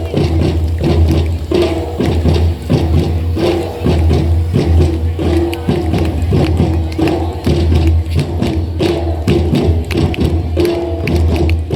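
School drum ensemble playing a fast rhythm of dense, continuous drum strikes.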